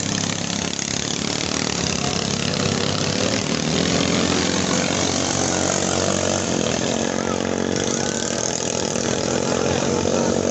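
Small boat engine running steadily at high revs, the level rising a little about four seconds in.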